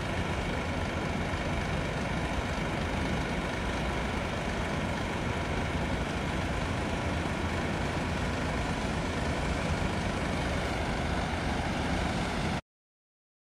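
Steady low engine rumble mixed with an even hiss, which cuts off suddenly into silence about a second before the end.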